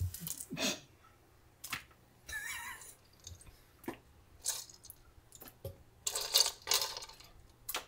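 Kitchen tongs clicking against a saucepan as live crawfish are picked out one at a time and dropped into a wok of boiling seasoned water, with a few sharp clicks and several short splashes.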